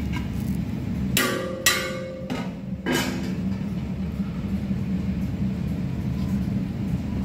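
A metal ladle knocking against a large steel cooking pot: three ringing clanks, two close together about a second in and one near three seconds, over a steady low rumble.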